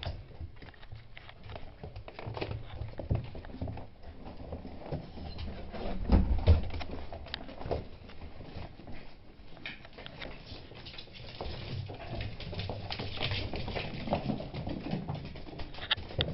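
Beagles' paws and claws pattering and scrabbling on a wooden floor as the dogs scuffle, a busy run of small clicks and scuffs, with a louder bump about six seconds in.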